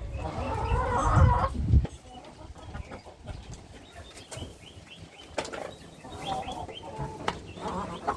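Domestic hens clucking and squawking, with gusts of wind rumbling on the microphone for the first couple of seconds.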